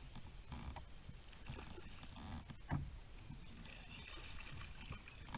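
Low knocks and water lapping at the kayak's hull while a hooked largemouth bass is reeled in, then splashing from about four seconds in as the bass thrashes at the surface beside the kayak.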